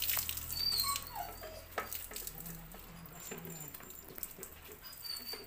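Water poured from a plastic tub over a wet dog's coat, splashing and pattering onto the floor, loudest in the first second or so. A few short high squeaks sound over it.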